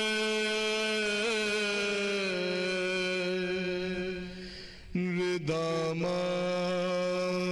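A man's solo voice chanting a souz, an Urdu mourning elegy, in long held notes. It pauses briefly for breath about four and a half seconds in, then starts a new phrase.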